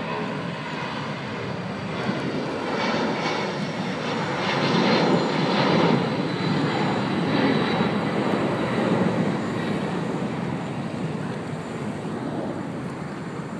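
Boeing 757 jet airliner taking off at full thrust: a broad engine rumble that builds to its loudest about five seconds in as the jet lifts off and passes, then slowly fades as it climbs away.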